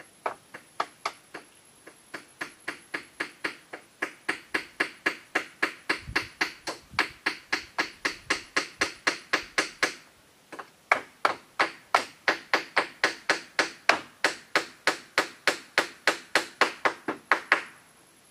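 Hand hammer striking split-bamboo roofing in a quick, even run of blows, about four a second, with a short pause about ten seconds in.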